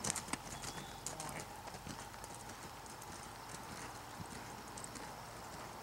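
A horse's hooves beating on soft arena sand at a lope. They are fainter after the first second as the horse moves off across the arena.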